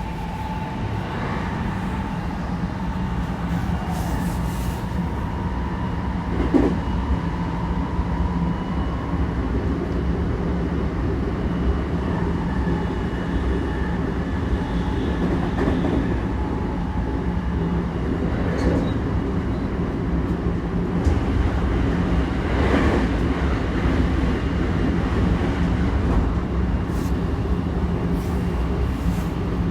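JR 223 series electric train running, heard from inside the car: a steady rumble of wheels on rail with occasional single knocks over rail joints. A faint steady whine carries through the first few seconds.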